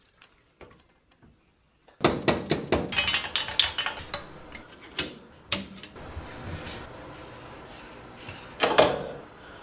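Rapid metallic clicking and clattering of shock parts and tools being handled. It starts suddenly about two seconds in and lasts a few seconds, then one more clatter comes near the end.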